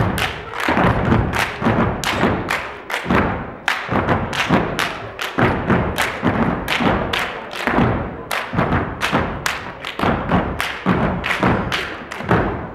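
Stepping: a group stomping on a wooden stage and clapping in unison, a fast, even rhythm of about three hits a second. It stops just before the end.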